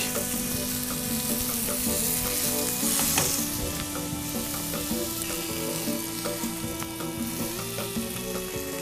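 Zucchini and eggplant rolls sizzling as they fry in a hot pan, a steady hiss.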